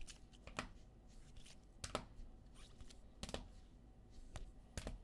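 Rigid plastic card holders clicking against each other as a stack of cased trading cards is flipped through: a handful of faint, sharp clicks roughly a second or so apart.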